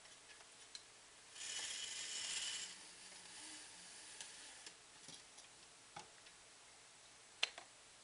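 Horizontal window blinds being pulled up by their cord: a rustling, whirring hiss about a second and a half in, then scattered light clicks and taps as the slats and cord mechanism settle and hands work near the window.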